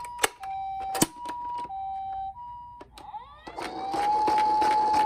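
Toy ambulance's electronic two-tone siren, switching back and forth between a high and a low note, with sharp clicks from the plastic toy being handled. About three seconds in it stops, and a louder siren sweeps up and holds one steady tone.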